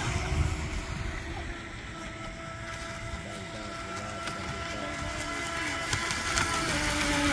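Brushless electric RC speedboat running flat out across the water, its motor giving a steady whine that drops to a lower pitch near the end as the boat turns.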